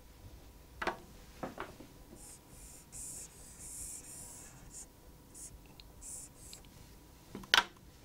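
Felt-tip marker scratching and squeaking across a whiteboard in several short strokes, with a few light clicks before and after the drawing.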